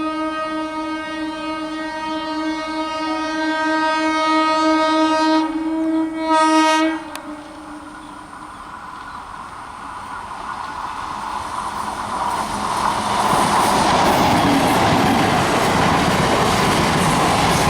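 Indian Railways EMU local train's horn sounding one long blast that cuts off about seven seconds in. The train's running noise then builds, with wheels clattering over rail joints, and is loud from about thirteen seconds on as it passes close by.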